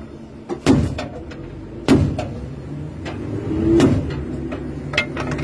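BTR-4E's turret gun firing single heavy shots, heard muffled from inside the vehicle over the steady hum of its engine: three loud shots in about three seconds, and a weaker one near the end.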